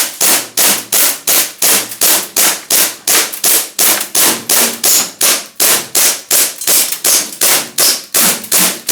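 Gas-powered airsoft gun firing a long, steady string of sharp shots at about three a second.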